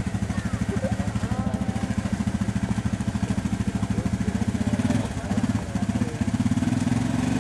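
Quad bike engine running hard under load, its wheels spinning in deep mud as it strains to tow a caravan. The engine note dips briefly about five seconds in, then pulls harder and louder near the end.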